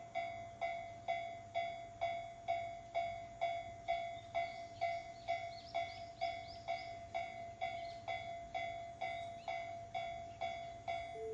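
Railway level-crossing warning bell ringing with an even, repeating ding at about two strikes a second, signalling that a train is approaching.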